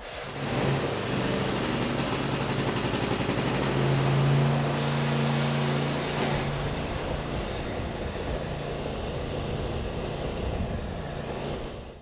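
Cub Cadet XT1 riding lawn mower's engine starting and running steadily as the mower drives off, coming up to full level within the first second.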